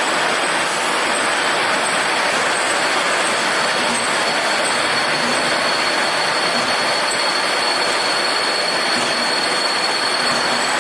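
Power polishing machine working metal generator parts: a continuous steady hiss with a thin, high whine held throughout.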